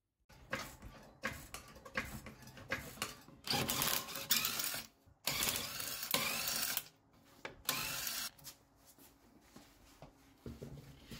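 Metallic clicking and clatter of a floor jack being worked and jack stands ratcheted up under a car. Scattered clicks at first, two dense stretches of clatter in the middle, then sparser clicks.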